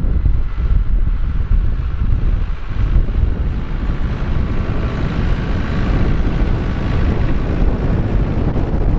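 Massey Ferguson tractor engine working under load while ploughing, its mid-range engine sound growing stronger midway, with heavy wind buffeting the microphone.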